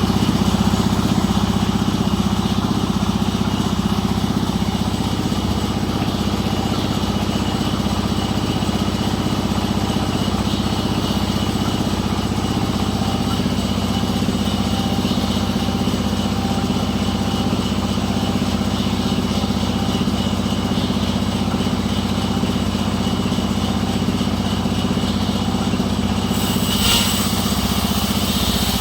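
An engine running steadily at a constant speed. About 26 seconds in, a hissing sound joins it.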